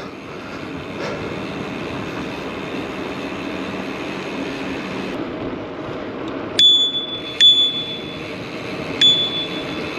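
Bicycle bell rung three times, each a clear ding that rings on briefly, over the steady rushing noise of the moving bike. The rider is warning people on the path ahead.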